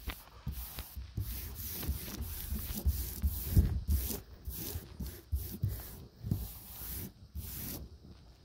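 Hands rubbing and pressing a vinyl decal's paper transfer tape onto a textured bed-liner coating: a run of short scraping rubs with low bumps underneath, easing off near the end.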